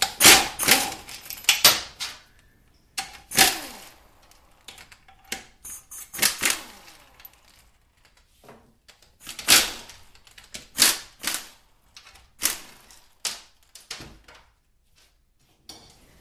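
Impact wrench run in short rattling bursts, loosening the 17 mm extension-housing bolts on a 4R44E automatic transmission. About a dozen bursts come a second or more apart, and some end in a falling whine.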